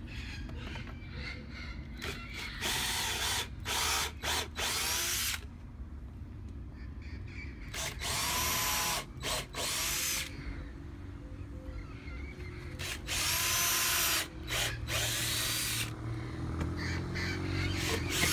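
Cordless DeWalt drill boring pilot holes into a maple tabletop in several bursts of two to three seconds, the motor whine rising as each run starts, with short pauses between holes.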